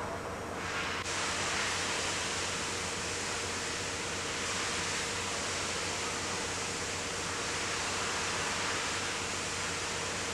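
Hiss of a marine diesel fuel valve on its high-pressure test rig: a loud, steady hiss starts suddenly about a second in and keeps on without a break.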